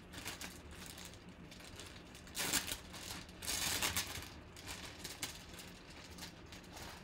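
Thin clear plastic bag crinkling and rustling as hands pull it open around a jersey, with two louder stretches of crinkling about two and a half and three and a half seconds in.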